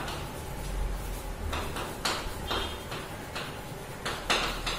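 Chalk writing on a chalkboard: a string of short scratching strokes and taps as letters are written, at irregular intervals, over a faint low hum.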